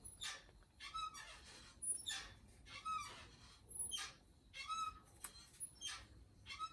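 Vinyl doll head squeaking against the plastic neck peg as it is twisted and pushed back onto the body, a series of short rubbery squeaks about one or two a second.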